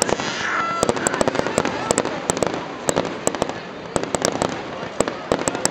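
Aerial fireworks bursting: a rapid, irregular series of sharp bangs and crackles.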